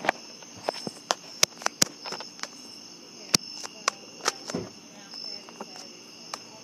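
Crickets chirping steadily, with a string of sharp clicks and knocks scattered through it.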